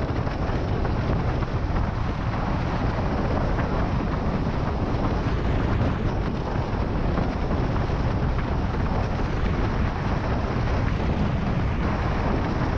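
Wind buffeting the microphone together with the rush of a windsurf board planing fast over choppy water, at about 57 km/h: a steady, even rushing noise with no breaks.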